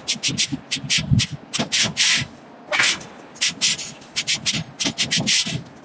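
Quick, rough scraping strokes, several a second and irregular, some brief and some longer, from a steel bar working against a red-hot rectangular iron forging.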